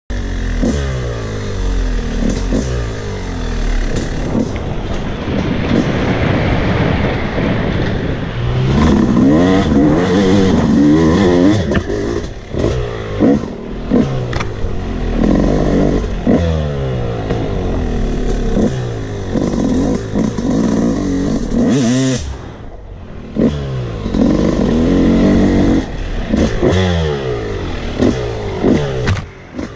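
2004 Yamaha YZ250's single-cylinder two-stroke engine under load, its revs climbing and falling over and over as the bike is ridden hard on a dirt trail. About three quarters of the way through the engine drops off briefly, then picks up again.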